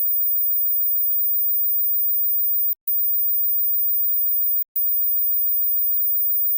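A very high-pitched steady pure tone, near the top limit of hearing, played as a hearing test. It cuts out briefly twice, at about three and five seconds in.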